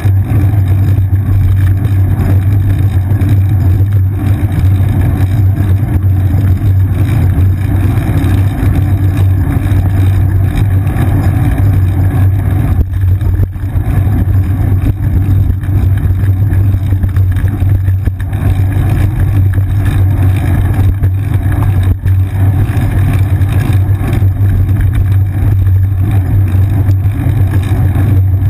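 Steady, loud low rumble of road vibration and wind buffeting picked up by a seat-mounted GoPro Hero 2 on a moving bicycle.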